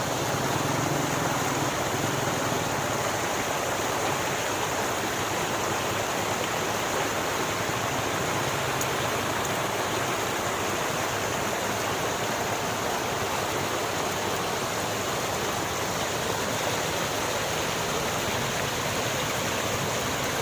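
River water flowing steadily over rocks, an even rushing and babbling without breaks.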